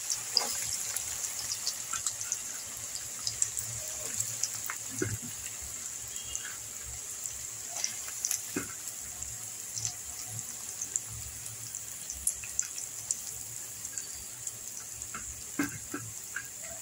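Sliced onions frying in hot mustard oil in a kadai: a steady sizzle with many small crackles and pops.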